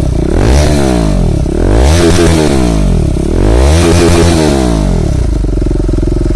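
KTM Duke 390's single-cylinder engine revved loudly three times through an Austin Racing slip-on muffler held onto the bend pipe by hand, each rev climbing and falling back. It settles to a steady idle near the end.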